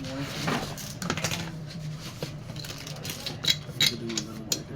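Scattered light clicks and taps of small hard parts being handled, a few to the second, over faint background chatter.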